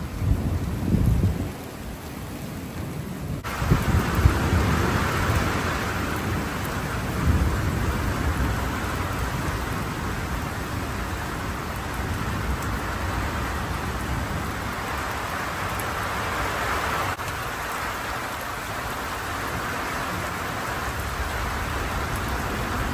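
Heavy rain falling steadily during a thunderstorm, with rolls of thunder rumbling in the first several seconds. In the last few seconds rainwater pours from a gutter downpipe into a water barrel.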